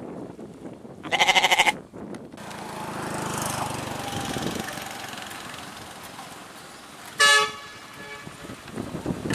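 Domestic goats bleating: one loud, drawn-out bleat about a second in, then a second, shorter bleat about seven seconds in, with steady background noise between them.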